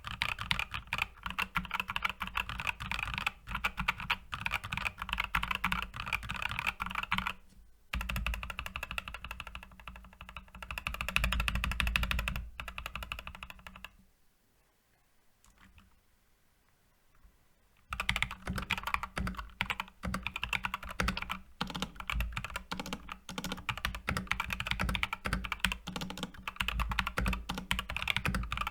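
Typing on a Skyloong SK64S mechanical keyboard with optical switches and PBT keycaps: fast, dense key clicks. There is a short break about a third of the way in, and the typing stops for about four seconds past the middle before it starts again.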